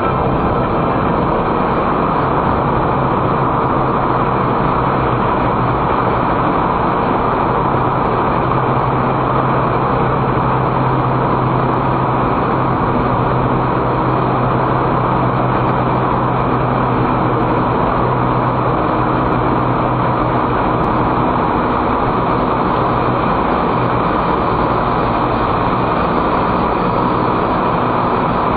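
Car driving through a road tunnel, heard from inside the cabin: a steady rush of tyre and road noise with a low engine hum underneath.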